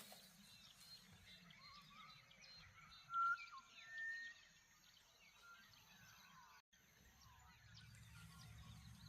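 Faint morning bird chorus: many small chirps and twitters, with a couple of clearer whistled notes about three to four seconds in. Under it runs a low steady rumble of wind, and the sound cuts out for an instant about two-thirds of the way through.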